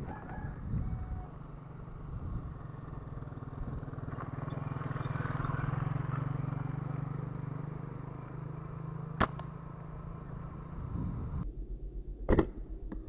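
Small motorbike engine running steadily as it rides past on the road, swelling in the middle and fading. Near the end comes a loud sharp snap of a rubber-band slingshot being shot, with a fainter snap a few seconds before it.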